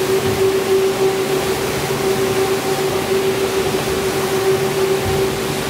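Rotary floor scrubber with a shampoo solution tank running over a wet, foam-covered rug: a steady motor hum over the even hiss of the brush scrubbing the soapy pile.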